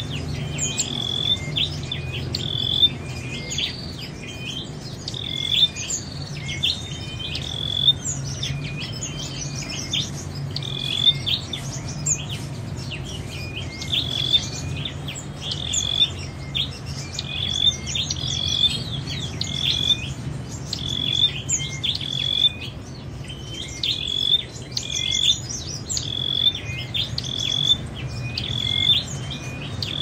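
A caged tailorbird singing: a loud, sharp note repeated over and over, about two a second, over a faint steady low hum.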